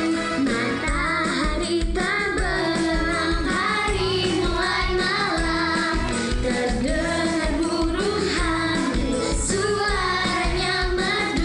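Indonesian children's song about an owl, sung by high voices over a pop backing track with a steady kick-drum beat of about two beats a second.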